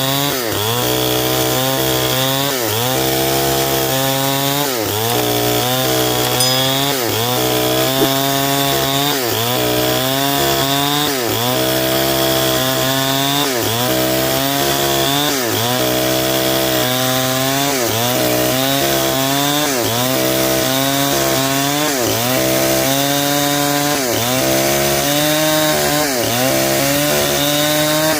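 Stihl 070 two-stroke chainsaw running at high revs and cutting lengthwise through a durian log to mill a beam. The engine pitch sags under load and picks up again about once a second.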